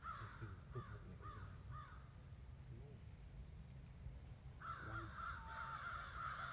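Short rising-and-falling animal calls repeat several times in the first couple of seconds, then a denser run of calls starts about two-thirds of the way through.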